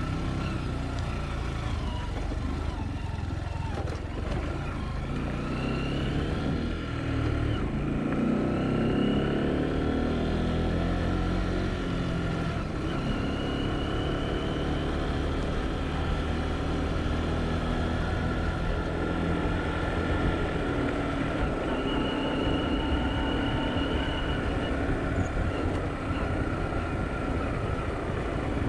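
Motor vehicle engine running steadily with road noise, its pitch shifting now and then; thin high tones come and go above it.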